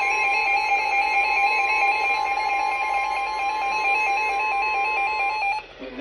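Emergency weather-alert tones from a weather radio: a steady tone with a second tone warbling back and forth above it, loud enough to startle, signalling an incoming flash flood warning. The tones cut off suddenly near the end.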